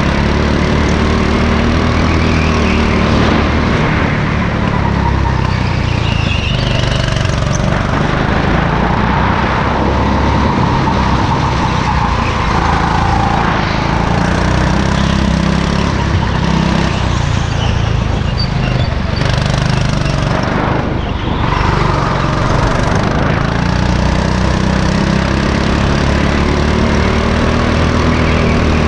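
Go-kart's small engine running hard through laps, its pitch rising and falling as it speeds up on the straights and eases off into corners.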